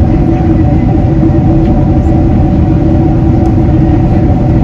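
Boeing 767-300ER cabin noise in flight on descent: an unbroken rumble of airflow and General Electric CF6 engine drone, with a couple of steady humming tones in it.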